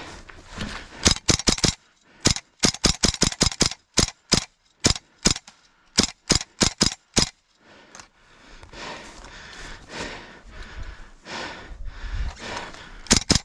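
Gas blowback airsoft gun firing a long run of sharp shots for about six seconds, some in quick strings, some singly. Then a few seconds of softer noise, and two quick shots near the end.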